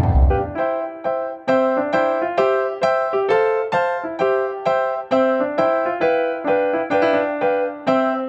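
Background music: a keyboard playing light, bouncy chords in a steady rhythm of about two strikes a second over a shifting bass line.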